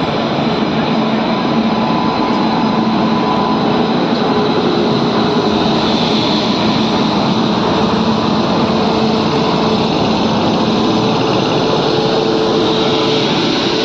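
Indian Railways electric locomotive running with a steady, loud hum and a constant whine over it.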